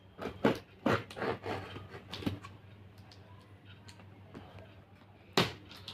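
Scissors scraping and slitting the packing tape along a cardboard box seam: a quick run of sharp scratches over the first two seconds or so, then one loud sharp click near the end.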